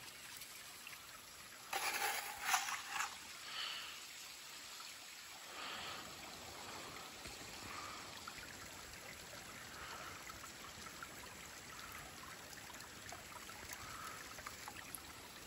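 Shallow creek water trickling and running through a small stream sluice box, a low steady sound. About two seconds in comes a brief louder scraping and pouring as a plastic scoop feeds gravel into the head of the sluice.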